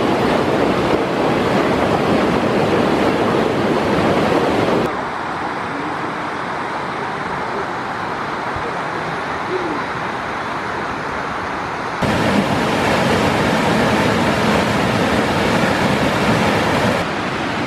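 Rushing water of a waterfall and a rocky mountain stream, a steady loud hiss of white water. About five seconds in it drops quieter and duller for some seven seconds, then comes back loud.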